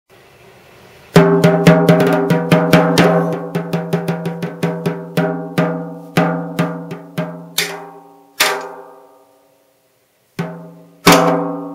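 A 14-inch custom-made wooden snare drum struck in a run of quick hits for about seven seconds, each ringing on with a clear drum tone, then a short pause and two more hits near the end, the last left ringing.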